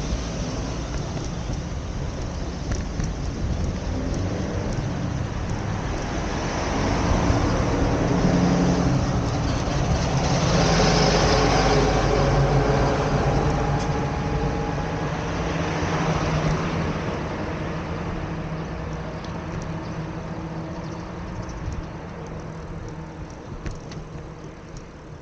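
Road traffic: motor vehicles passing close by, an engine hum under tyre noise that swells to its loudest around the middle, swells again briefly a few seconds later, and then dies away.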